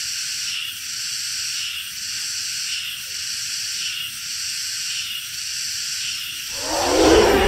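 A high, thin chirring chorus, steady with a faint pulse about once a second. About six and a half seconds in, a deep dinosaur roar sound effect breaks in and becomes the loudest sound.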